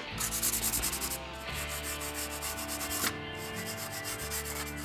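Brush scrubbing a solvent-wet polymer PMAG rifle magazine, quick scratchy back-and-forth strokes, strongest in the first second and softer after.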